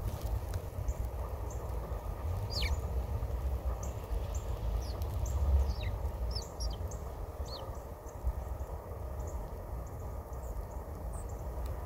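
Small birds chirping: many short, high, falling chirps scattered irregularly. A steady low rumble runs beneath them.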